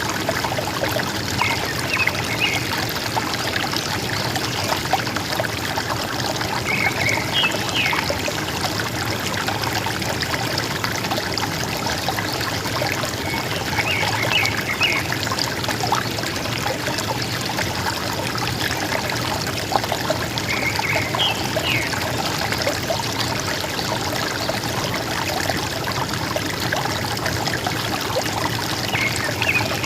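River water running and gurgling steadily, with a forest bird's short chirping phrase coming back about every six or seven seconds.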